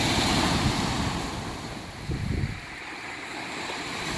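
Small waves breaking and washing up onto a sandy beach, loudest in the first second or so and then easing off. Wind rumbles on the microphone.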